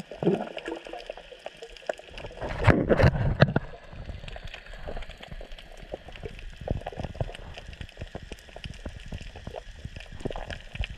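Underwater sound picked up by a camera below the surface: a steady crackle of short clicks, with a louder bubbling gurgle about two and a half seconds in that lasts about a second.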